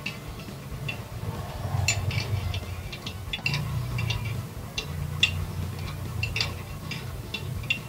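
Ratcheting wrench clicking in short, irregular runs as it tightens the clamp bolt on a slip-on motorcycle exhaust, over a low steady rumble.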